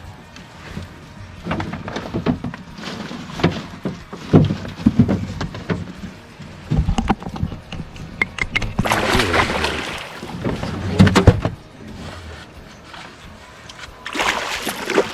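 Irregular knocks and clatter in a small fishing boat, with water splashing, loudest about two-thirds of the way through and again near the end.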